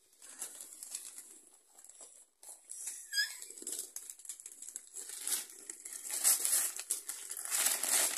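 Wrapping paper rustling and tearing as presents are unwrapped by hand, crackling irregularly and getting busier in the second half. A brief high chirp about three seconds in.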